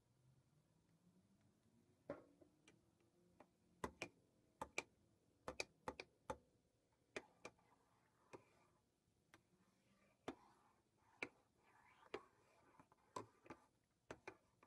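A metal spoon stirring cream into pumpkin soup in a ceramic crock pot bowl, clinking against the bowl in irregular sharp ticks.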